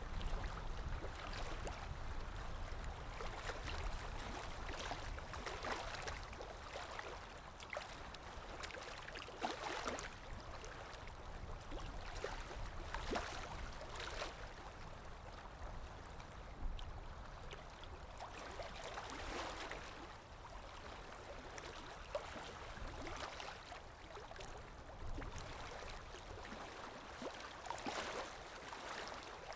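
Recorded water sounds: water flowing and splashing, with irregular louder splashes every second or two over a low rumble.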